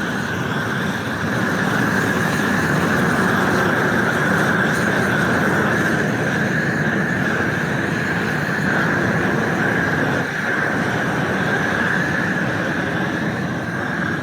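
Propane flame weeder torch burning with a steady, loud hiss that dips briefly about ten seconds in. It is flaming the freshly sprouted weeds before planting.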